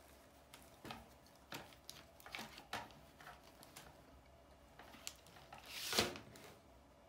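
Small plastic clicks and taps, with light handling rustles, as a 1/6-scale action figure is fitted onto its round plastic display stand. A louder brief rustle comes about six seconds in.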